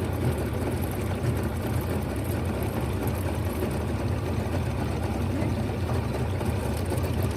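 Boat's outboard motor running steadily, a low even drone.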